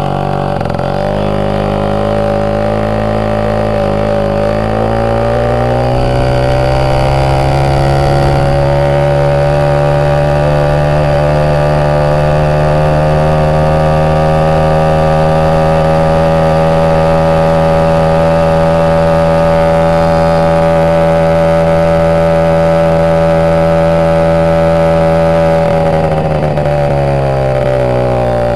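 Moped engine pulling up to speed, its pitch climbing over the first several seconds. It then runs at a steady high speed for about twenty seconds and drops in pitch as it eases off near the end.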